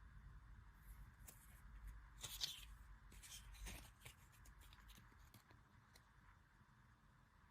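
Faint handling noises of paper and plastic packaging and cards: scattered soft rustles and small clicks, the loudest a brief crackle about two and a half seconds in, over a low steady hum.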